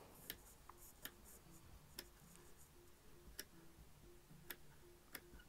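Tailor's scissors snipping into the seam allowance along a stitched fabric edge: about six small, sharp clicks at uneven intervals, one for each cut.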